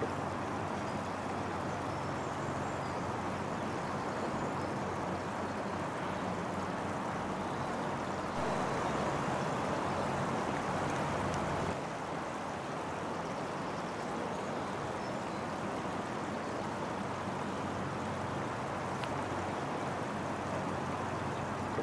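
Steady rushing background noise with no clear single source, a little louder for a few seconds in the middle.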